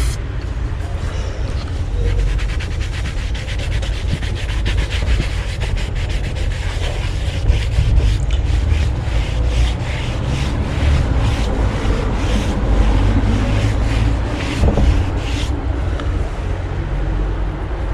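A cloth rag rubbed hard back and forth over the scratched wood of an old door, in quick repeated strokes, over a steady low rumble.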